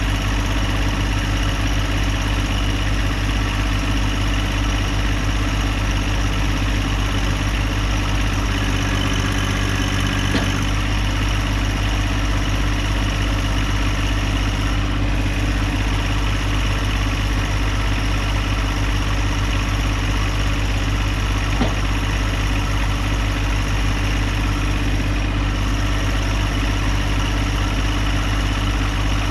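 Woodland Mills HM126 sawmill's gas engine running steadily under an even throttle.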